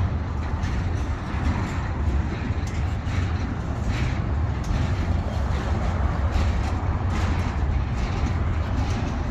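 Double-stack intermodal freight train rolling past: a steady low rumble of steel wheels on the rails, with frequent clanks and rattles from the well cars.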